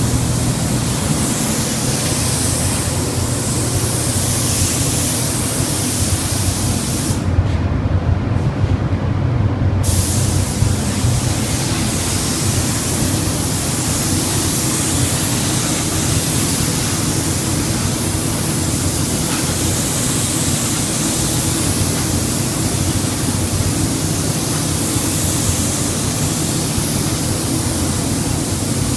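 Gravity-feed paint spray gun hissing steadily as it sprays a car body panel, over a low steady drone. About a quarter of the way in, the hiss cuts out for roughly two and a half seconds, then resumes.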